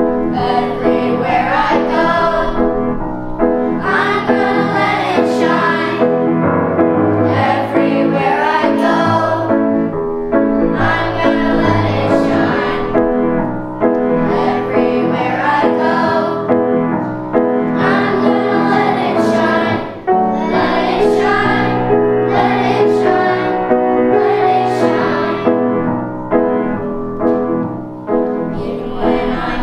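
Children's choir singing with piano accompaniment, phrase after phrase over held low notes, with a brief break about two-thirds of the way through.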